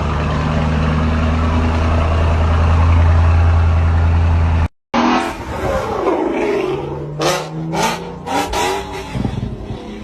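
A car engine running steadily with a deep low-pitched note. It cuts off abruptly about halfway through, and a second car is heard revving, its pitch rising and falling, with several sharp cracks.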